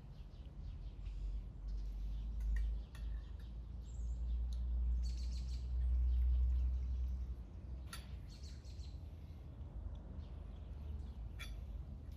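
Birds chirping, with a few sharp clinks of spoons against dishes and a steady low rumble underneath.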